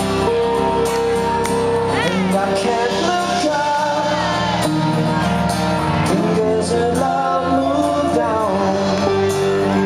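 Live band music with a strummed acoustic guitar, played loud and steady through a concert PA.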